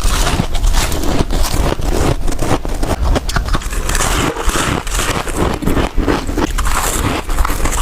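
Crisp frozen ice, soft humidifier frost, crunching and scraping close to the microphone: a dense, continuous run of crackling clicks.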